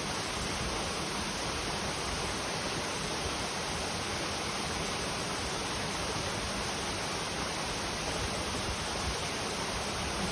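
Clear mountain stream flowing, a steady, even rush of water with no breaks.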